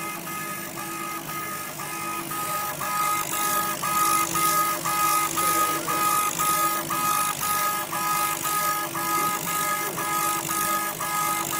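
Mini laser engraver raster-engraving: the head's stepper motors whine in short, evenly spaced strokes of one pitch, about three a second, with a brief break as the head reverses at each end of a pass, over a steady low hum. The whine grows louder about two seconds in.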